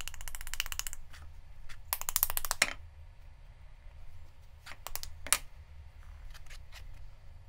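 Wooden rice spoon worked over the surface of a soft terracotta air-dry clay pot, giving a rapid scratchy ticking. It comes in two strokes, one at the start lasting about a second and another around two seconds in, followed by a few single clicks.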